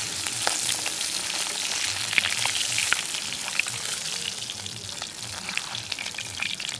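Rohu fish steaks sizzling and crackling in hot oil in a blackened iron karahi, with a few sharp clicks as a steel spatula turns the pieces.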